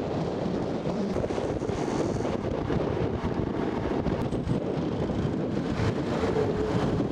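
Wind buffeting the microphone over road and traffic noise while riding on a motorcycle; a faint steady hum comes in near the end.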